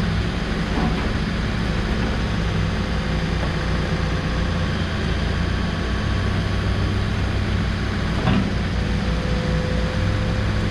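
Case 590SN backhoe loader's diesel engine running steadily, with a light knock about a second in and another near eight seconds. A faint thin whine joins near the end.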